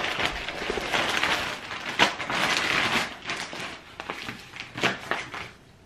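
A plastic mailer bag being ripped open by hand, then its packaging crinkling and rustling as it is handled, with several sharper tearing peaks, the loudest near the start and about two seconds in. The noise dies away near the end.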